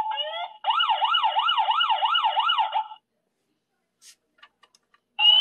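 A Toy State toy police helicopter's electronic siren sound effect. After a rising sweep, a fast warbling wail at about three cycles a second stops abruptly about three seconds in. A few faint clicks follow, and another electronic sound starts with a rising glide just before the end.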